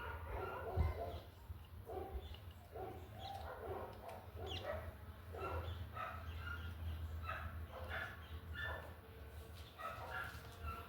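Repeated short animal calls, irregular at about two a second, over a steady low hum.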